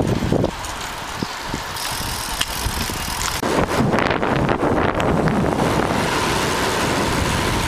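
Rushing wind and road noise from a bicycle rolling downhill, picked up by a camera carried by the rider. The rush widens and grows louder about three and a half seconds in.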